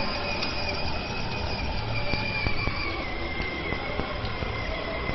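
Electric ride-on toy car driving: its small motor and gearbox whine steadily, the pitch sagging slightly, over a low rumble of its plastic wheels.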